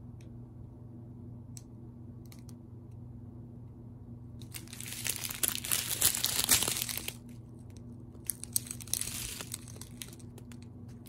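Clear plastic zip-top bags of diamond-painting drills crinkling as they are handled, in two bursts: a louder one about four and a half seconds in lasting over two seconds, then a shorter one. A low steady hum runs underneath.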